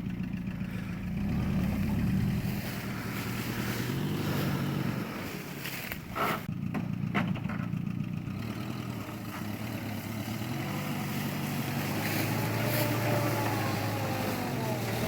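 1940s Willys jeep engine running under load off-road, its pitch rising and falling with the throttle, with a few sharp knocks about six to seven seconds in.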